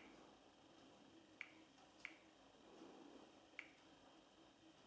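Four faint, short clicks, unevenly spaced, from an LG F60 smartphone being operated by touch as it leaves its camera app.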